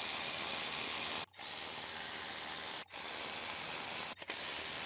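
Cordless ratchet running, spinning off the 10 mm valve cover nuts: a steady, hissy whir in runs of about a second and a half, each broken off abruptly.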